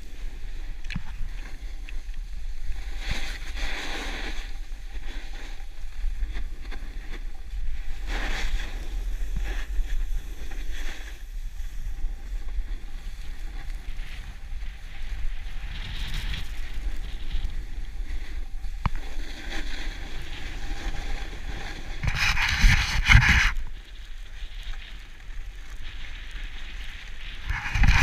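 Wind buffeting a GoPro Hero4's microphone during a downhill run on snow, a steady low rumble. Over it come several bursts of hissing, scraping snow as edges bite into the groomed surface on turns; the loudest burst is about 22 seconds in.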